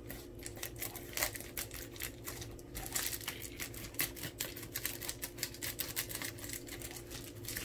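Scissors snipping through a plastic mailer bag, a run of irregular crisp snips with the plastic crinkling as it is handled.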